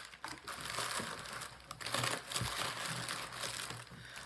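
Plastic air-pillow packing crinkling and crackling as it is handled and pulled out of a shipping box, with a soft bump about halfway through.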